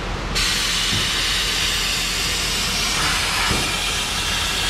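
Compressed-air fogging gun hissing as it blows oil undercoating, mostly air with a little product, into the inside of a truck door through its drain holes. The hiss starts about a third of a second in and holds steady.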